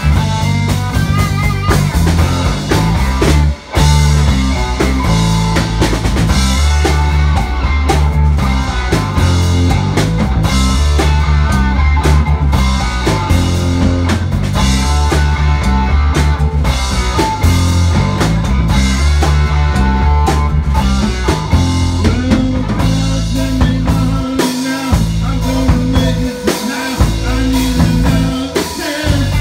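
Live rock band playing without vocals: solid-body electric guitar over bass and drums, with a brief stop about three and a half seconds in.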